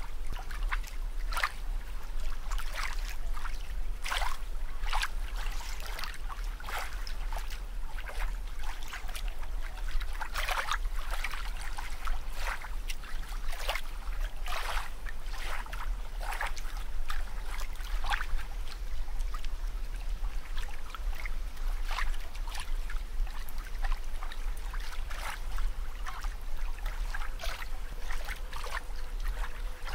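Water bubbling and sloshing: irregular short splashy pops several times a second, over a steady low hum.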